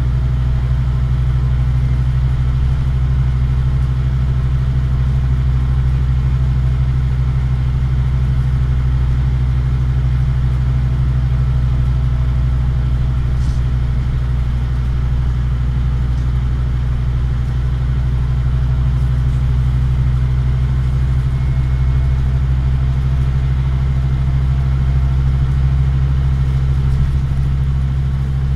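Scania OmniCity bus's diesel engine running steadily while the bus is under way, a constant low drone heard from inside the passenger saloon.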